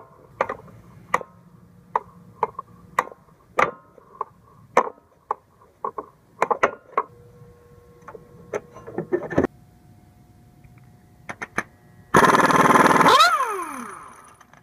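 Metal tools clinking and tapping irregularly, with short rings. About twelve seconds in, an impact wrench hammers on the harmonic balancer's centre bolt for about a second, then winds down with a falling whine.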